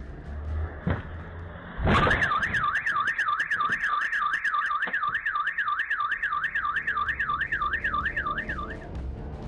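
A bump as a car hits a parked car, followed at once by a car alarm: a loud electronic warble sweeping up and down about three times a second, set off by the impact. It runs for several seconds and stops shortly before the end.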